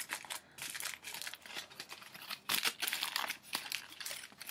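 Aluminium foil being crumpled and folded by hand, a run of irregular crinkling rustles.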